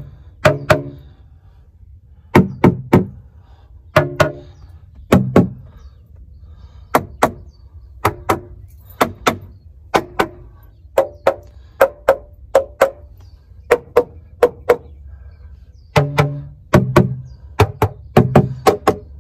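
Background music made of sharp, struck notes at changing pitches, one or two a second with short gaps.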